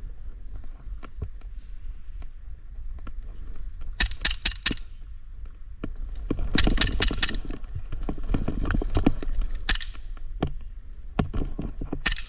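Airsoft guns firing in short rapid bursts of sharp clicks, four bursts several seconds apart with scattered single shots between, over a constant low rumble.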